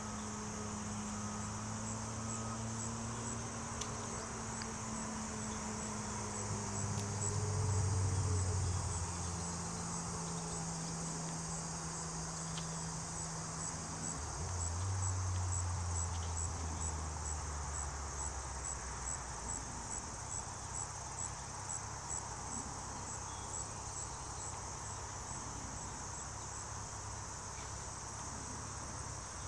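Steady high-pitched chorus of insects, crickets or similar, with a regular pulsed chirp about twice a second. Under it a low hum of unclear source shifts in pitch and swells twice, about eight and fifteen seconds in.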